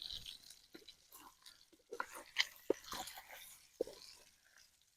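Smoked sausages frying in a pan, crackling faintly with irregular sharp pops, a few louder ones in the middle.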